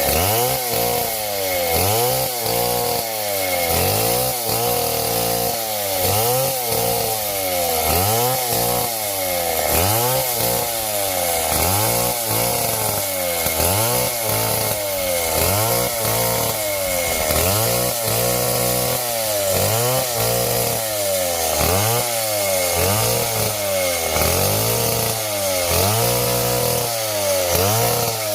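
Small chainsaw cutting wood, its engine pitch rising and falling about once a second.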